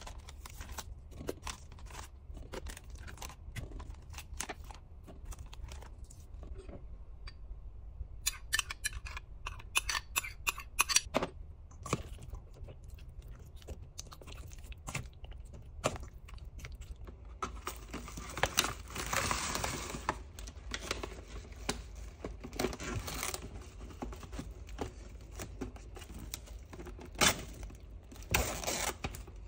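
Kitchen work sounds: scattered light knocks, clicks and rustling, with a rapid run of ticks about a third of the way in and a longer hissing rush about two-thirds in.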